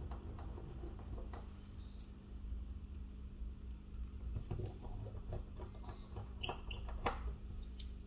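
Small clicks and taps of tools and phone parts being handled, over a steady low hum. Several short, high-pitched chirps or squeaks stand out; the loudest comes a little under five seconds in.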